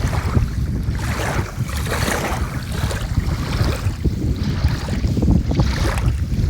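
Small lake waves lapping at the shore, washing in about once a second, with wind rumbling on the microphone.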